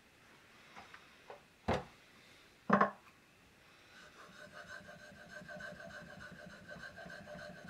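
Two sharp knocks, about a second apart, as the blade is handled on the stone. Then, from about four seconds in, a kanna (Japanese plane) blade is rubbed back and forth on a synthetic waterstone in quick, even strokes, a steady rhythmic scraping.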